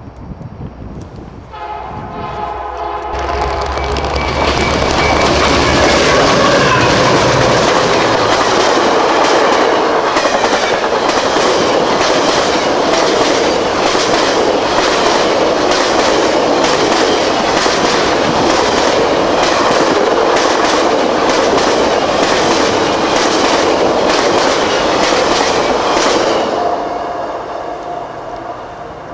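A VIA Rail diesel-hauled passenger train sounds a short chord on its horn about two seconds in. The locomotive rumbles past, then a long line of stainless steel passenger cars goes by at speed, their wheels clicking over the rail joints in a steady clickety-clack. The sound fades away near the end as the last car passes.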